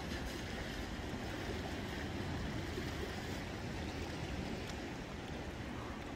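Steady wash of low sea waves against shoreline rocks.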